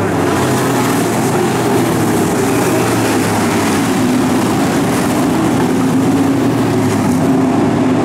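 A pack of pro stock dirt-track race cars' V8 engines running together at racing speed, several engine notes overlapping and wavering as the cars go through the turns.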